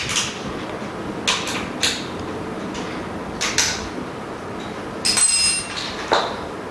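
Scattered clicks and knocks of small parts being handled and fitted as feet are mounted on the base of a vacuum pump, with a metallic clink that rings briefly about five seconds in.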